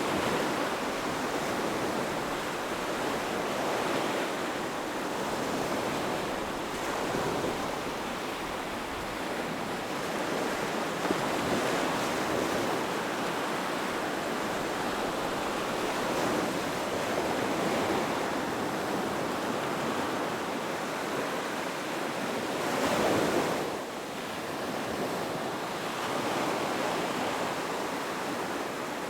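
Ocean surf: waves breaking and washing up a shore in a continuous wash that swells and ebbs every few seconds, with one stronger wave about three quarters of the way through.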